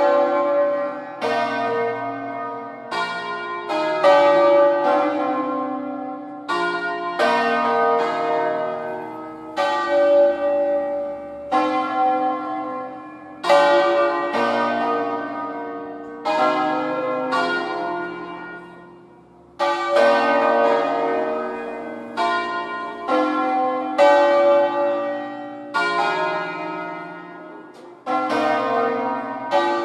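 Full swinging peal (distesa) of five hand-rung bronze church bells tuned in B-flat, cast by Felice Bizzozero in 1859, swung on wheels so their strikes overlap into a dense, ringing clangour. The peal comes in waves, fading almost away and starting again three times: about ten and twenty seconds in, and near the end.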